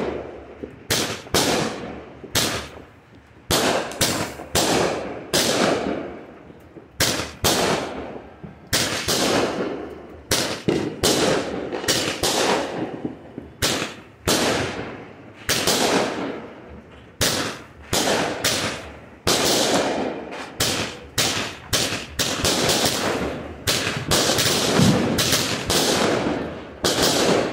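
Pyro King 'Buck Fever' 25-shot consumer firework cake firing shot after shot: sharp launch thumps and aerial burst bangs, one to two a second, coming closer together toward the end.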